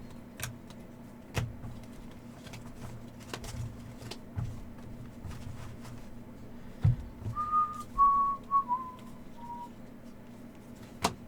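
Trading cards and packs being handled, with scattered light clicks and taps over a steady low hum. About seven seconds in, a person whistles a short phrase of four or five notes, stepping down in pitch.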